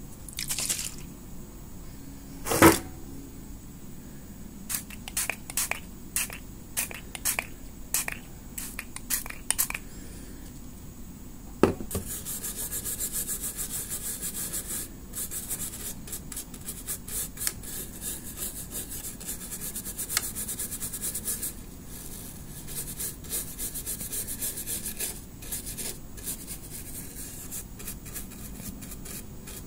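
Toothbrush bristles scrubbing the pin holes of a CPU socket wet with isopropyl alcohol, a dense hissy scratching that starts about 12 seconds in and goes on with short breaks. Before it there is a single loud knock, then a run of short sharp clicks.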